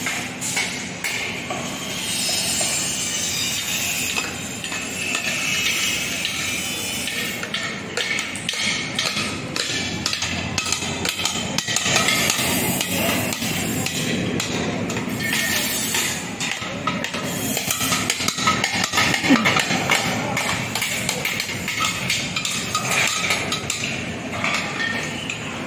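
Construction site din: frequent hammer blows and metal clanking from steel scaffolding and formwork being assembled, over a continuous background noise.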